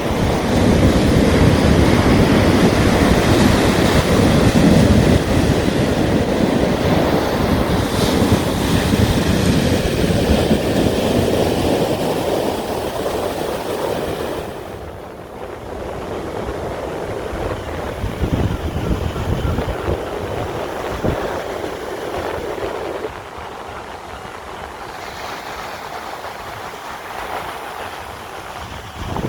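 Sea waves washing onto a shore, a steady surging rush of surf. The surf is loudest in the first half, then drops to a softer wash about halfway through.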